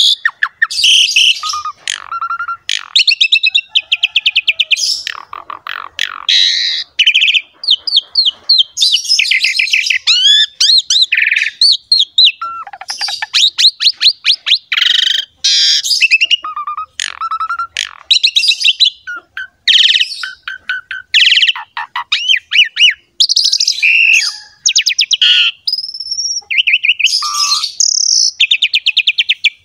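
Asian pied starling (jalak suren) singing in an energetic, continuous run of mixed phrases: rapid rattling trills, clear whistles and harsh chattering notes, with only brief pauses.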